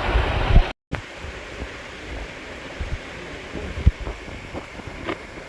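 Steady rush of waterfall and stream water with wind buffeting the microphone. The sound drops out for a moment under a second in and comes back quieter, with a couple of short knocks.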